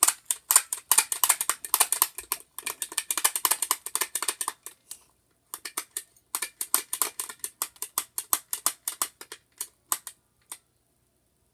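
Handheld stapler clicking rapidly as its mechanism is worked over and over, in two runs of a few seconds each with a short break between.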